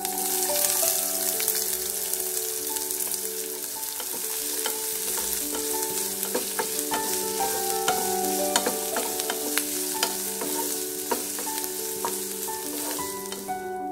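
Chopped onions sizzling as they fry in hot oil in a frying pan, the sizzle starting the moment they go in, with a wooden spatula scraping and clicking against the pan as they are stirred. The sizzle stops just before the end.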